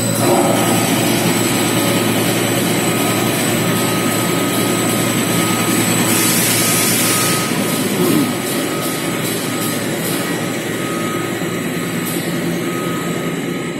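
Honeycomb paperboard production line running: rollers and drive machinery make a steady, dense mechanical noise with a faint steady whine, and a short burst of hiss about six seconds in.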